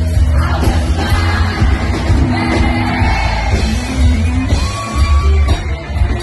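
Live band playing loud amplified music with heavy bass, a singer's voice over it.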